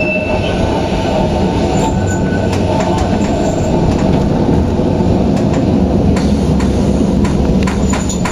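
Kintetsu 260 series narrow-gauge electric train heard from the cab: a loud, steady running rumble with sharp clicks of the wheels over rail joints and some wheel squeal, as the train slows for a stop. The train has old-style nose-suspended traction motors.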